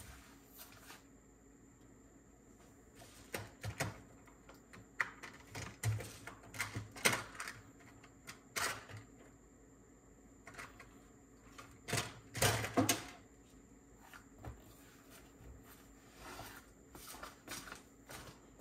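Irregular small clicks, taps and knocks from small tools and parts being handled on a workbench during cassette-mechanism repair, with a louder cluster of knocks about twelve seconds in.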